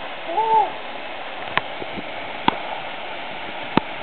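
Small waterfall pouring into a river pool, a steady rushing of water. About half a second in, a short hoot rises and falls, and three sharp clicks follow later.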